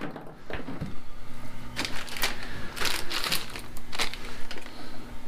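Small bag of saddlebag-mounting hardware being handled: plastic rustling and small bolts and nuts clicking against each other, in irregular bursts, over a faint steady low hum.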